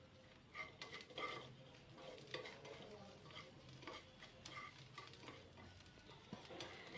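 Faint metal spoon stirring crushed ginger in ghee in a pan: irregular light scrapes and clinks of the spoon against the pan, several times a second at most.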